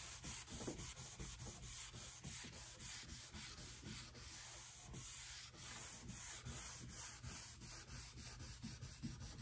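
A cloth rag rubbed in quick, repeated strokes over a bare, finely sanded wooden tabletop, wiping off a freshly applied coat of whitewash.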